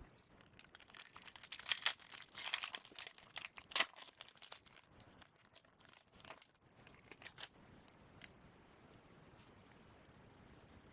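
A 1997-98 Fleer Ultra basketball card pack wrapper being torn open and crinkled for a few seconds, followed by scattered light ticks of the cards being handled.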